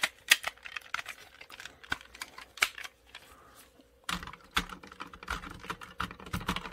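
Hard plastic parts of a Shogun Megazord toy clicking and knocking as its arm pieces are handled and fitted onto the body, with a short quiet pause in the middle.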